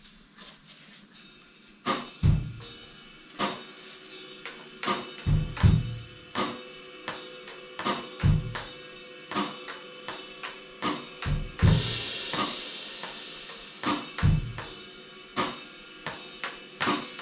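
Acoustic drum kit playing a steady groove of kick drum, snare and cymbals, starting with a few soft hits before the full beat comes in about two seconds in. The kick drum lands now and then in quick pairs, the 'bum bum' figure, and a cymbal wash joins about twelve seconds in.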